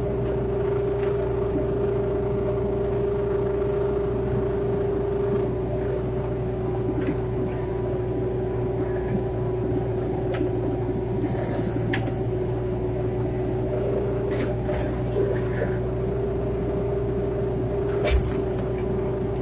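Excavator's diesel engine running steadily with a deep rumble and a constant hum, with a few scattered sharp knocks, the loudest near the end.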